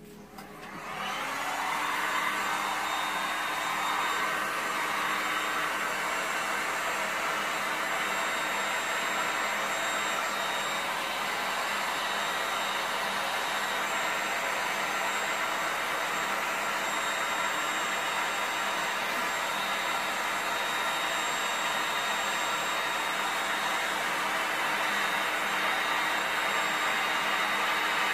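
Hand-held electric heat gun switched on, its fan spinning up over about a second and then blowing steadily with a high whine.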